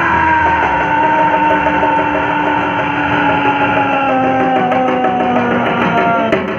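Music with guitar-like instruments, carried by one long held note that slides slowly and steadily down in pitch over about five seconds.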